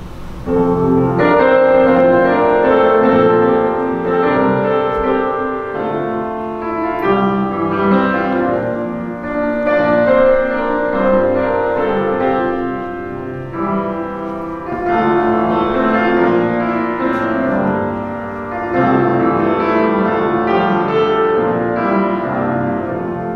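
Instrumental keyboard music: a slow run of chords that comes in strongly about half a second in.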